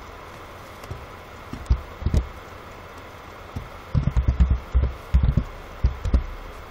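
Computer keyboard keys being typed as dull, low thumps: a few single keystrokes, then a quick run of them about four seconds in. A steady background noise runs underneath.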